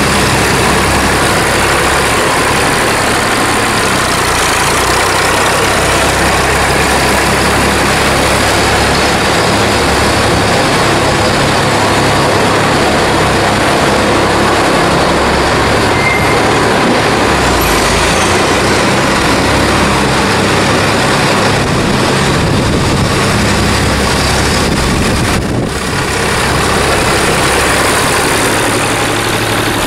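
Massey Ferguson tractor engine running steadily as the tractor works a yard scraper over the concrete clamp floor, under a loud, even rushing noise.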